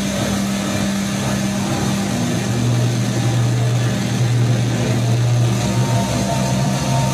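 Experimental noise music played live: a steady wash of hiss over low sustained drone tones, the drone dropping to a lower pitch about two and a half seconds in.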